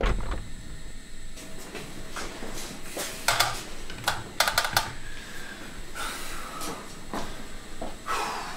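A low thud at the start, like a door shutting, then scattered clicks, clunks and short rustles of handling things at a kitchen counter by an electric kettle, with a cluster of sharp clicks about four and a half seconds in.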